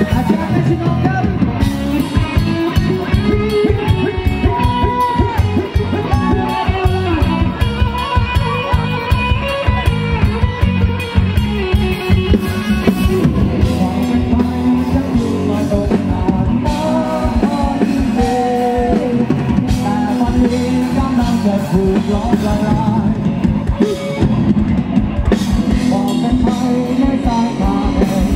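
Live rock band playing loud and amplified: a driving drum kit, electric bass and electric guitar, with a melodic lead line bending over the top and no sung words.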